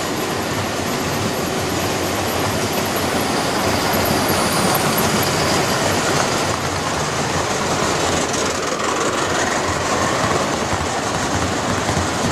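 Gauge 1 model trains running past on the track: a steady rushing rumble of wheels on the rails, as a rake of goods wagons and then a rake of coaches go by.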